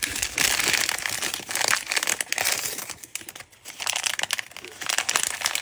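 Crinkly wrapping on a Mini Brands mini being handled and torn open by hand: a continuous crackling and rustling with small sharp ticks, easing off for a moment about three seconds in.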